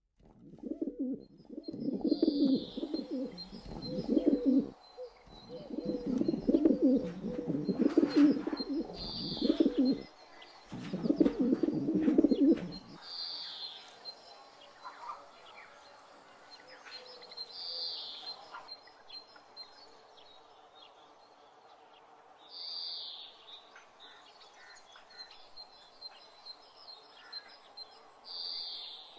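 Outdoor birdsong: a bird repeats a short, high call every four or five seconds. Under it, for the first thirteen seconds, a louder, low, wavering sound comes in three long stretches and then stops, leaving faint outdoor ambience.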